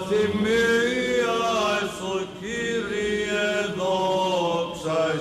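Men's voices chanting Byzantine church chant: a slow, ornamented melody sung over a steady held drone (the ison), in a large, echoing church.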